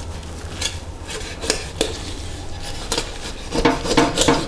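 Large knife cutting down the back of a whole raw chicken: scattered clicks and crunches as the blade works along the backbone, turning into a dense run of crunching near the end.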